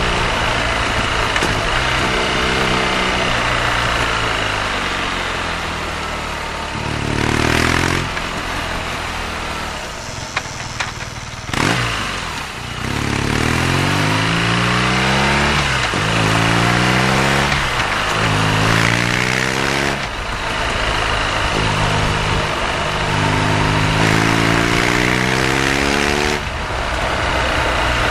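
BMW R nineT's air/oil-cooled boxer twin pulling through the gears. Each run rises in pitch and drops back at the shift, several times in quick succession, with an easier, quieter stretch about a third of the way in. Steady wind noise runs underneath.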